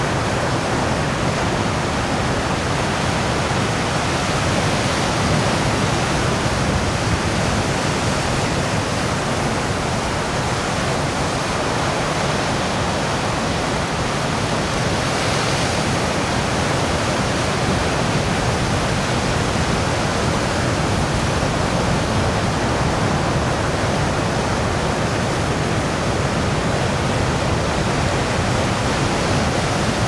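Rough ocean surf breaking, a constant, even rush of white water with no single wave standing out.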